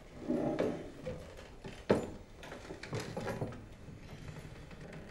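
A single sharp knock about two seconds in, with fainter, softer sounds before and after it.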